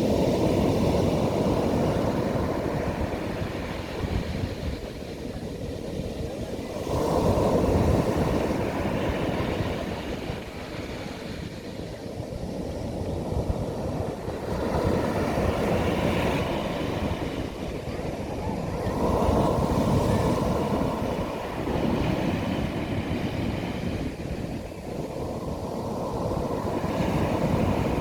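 Sea waves breaking and washing up a beach. The surf swells and eases again every four to eight seconds.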